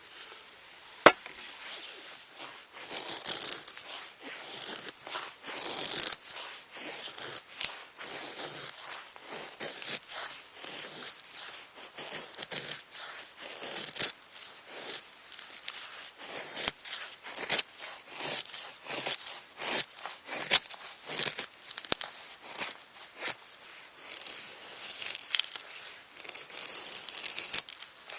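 Irregular tearing, crinkling and crackling handling sounds, with many sharp clicks scattered through and a loud snap about a second in.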